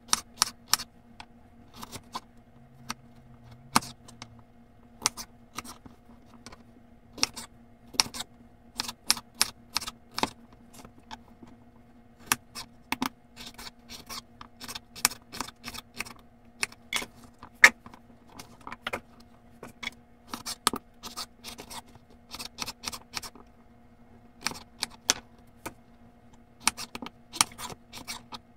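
Kitchen knife chopping peeled raw potatoes on a wooden cutting board: sharp knocks of the blade striking the board, in quick irregular runs with short pauses. A faint steady hum runs underneath.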